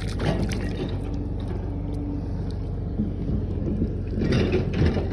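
Shallow water sloshing and wet mud squelching as a gloved hand digs through it, loudest in a burst about four seconds in, over a steady low hum.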